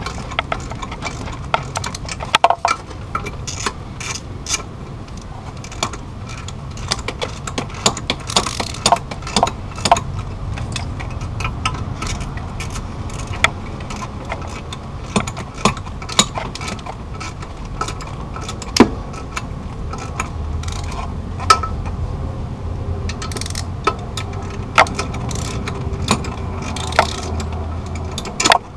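Irregular metallic clicks and clinks of a ratchet and socket working the clutch pressure plate bolts, snugging them down a little at a time against the flywheel.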